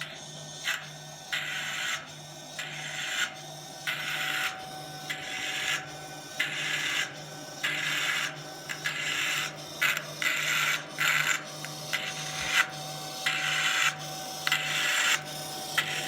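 Mini EDM (spark-erosion) machine, its electrode sparking against the metal workpiece in short, irregular bursts of crackling hiss that start and stop every second or so, over a steady low hum.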